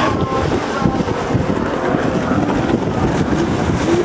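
Stand-up jet ski engines running hard at racing speed, a steady loud drone, with wind buffeting the microphone.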